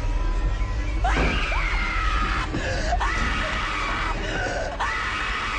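A young woman screaming three times in long, high, wavering screams, starting about a second in, over a low steady rumble from a film score.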